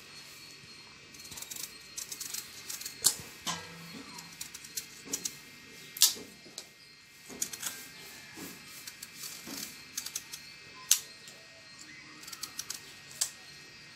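A kitchen knife shaving the skin off a slice of ash gourd (white pumpkin): irregular short scraping strokes and clicks, the sharpest about three, six and eleven seconds in.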